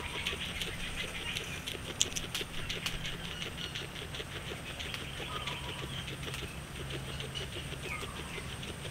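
Guinea pig chewing fresh grass: a fast, continuous run of small crisp crunching clicks, with one sharper click about two seconds in.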